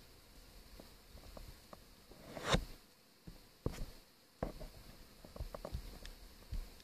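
Hard plastic parts of a Takara Tomy Masterpiece Star Saber transforming toy clicking and tapping as they are handled and moved into place, with one louder knock about two and a half seconds in.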